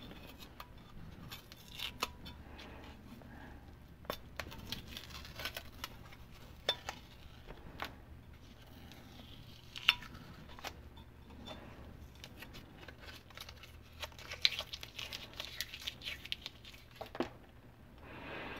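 Masking tape being peeled and unwound off a freshly painted micrometer frame: faint crinkling and tearing with scattered small clicks of handling.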